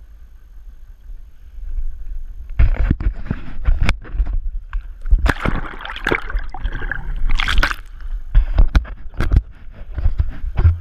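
Seawater splashing and gurgling around a pole-mounted action camera as it is plunged into the sea and lifted out, with a muffled underwater rush. The splashing starts about two and a half seconds in as an irregular run of sharp knocks and sloshes.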